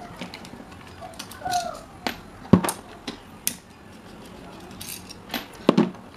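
Scattered metal clicks and knocks from a screwdriver working the housing screws of an electric fan motor while the motor is handled, with a sharper knock about two and a half seconds in and a few more near the end.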